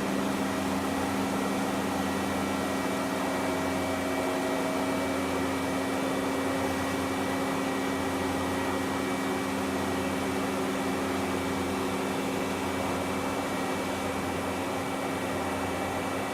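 Steady mechanical hum of a double-column CNC machining center running, with several constant tones over an even whir and no change in speed.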